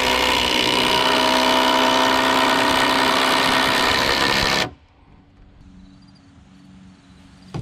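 Cordless drill running steadily with its bit into the top of a log for nearly five seconds, then stopping abruptly.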